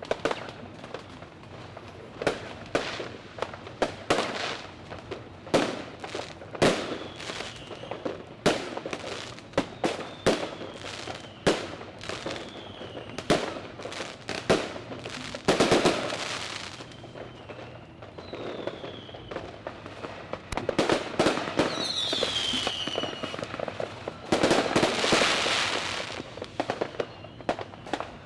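Fireworks going off: a rapid, irregular series of sharp bangs, with several high whistles that fall in pitch. There are two longer bursts of dense crackling, one about halfway through and one near the end.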